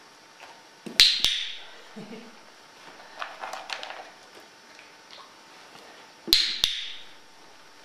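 Hollow toy canisters knocked off a stack by a dog and hitting the step and floor: a sharp double knock with a short ringing tail about a second in, a quieter rattle in the middle, and another sharp double knock near the end as a second canister topples.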